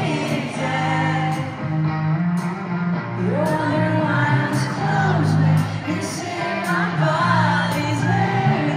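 Pop music with a singing voice over sustained low bass notes.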